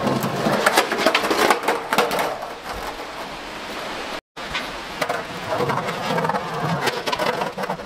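Skateboard wheels rolling over rough concrete with repeated clacks and knocks of the board, including the board coming off underfoot and rolling away empty. The sound cuts out briefly about four seconds in, then the rolling and clattering go on.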